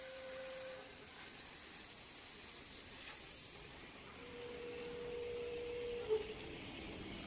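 Faint steady whine from the CNC plasma table's gantry drive as the torch head traverses over the cut plate. The whine is heard briefly at the start and again for about two seconds later on, stopping with a sharp click. A faint high hiss fades out in the first few seconds.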